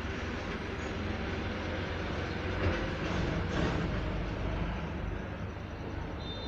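Steady background noise over a low hum, with two soft knocks about a second apart near the middle.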